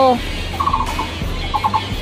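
A bird calling in short, quick runs of four or five notes, twice: once about half a second in and again near the end.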